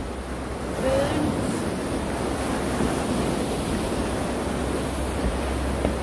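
Sea surf washing against the rocky shore: a steady rushing noise that swells a little about a second in.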